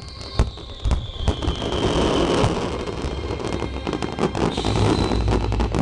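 Fireworks finale: rapid bangs and dense crackling from many shells, with a whistling tone falling in pitch over the first couple of seconds.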